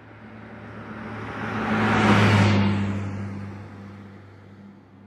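A motor vehicle passing by with a low engine hum. The sound swells to a peak about two seconds in and then fades away, and its pitch drops slightly as it goes past.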